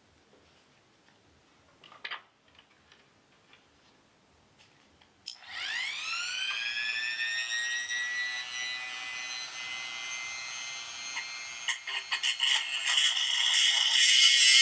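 Rotary tool switched on about five seconds in, its motor whining up in pitch to a steady high speed. From about twelve seconds in, the bit grinds into the plastic tail-light housing to widen a wire hole, and the whine turns louder and rougher.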